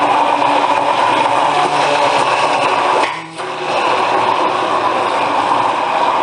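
Electric kitchen blender motor running steadily. About three seconds in it briefly cuts out, then runs again.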